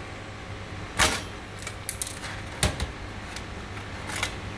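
A few sharp metallic clicks and knocks as a graphics card and its metal parts are handled on a workbench, the strongest about two-thirds of the way in, over a steady low hum.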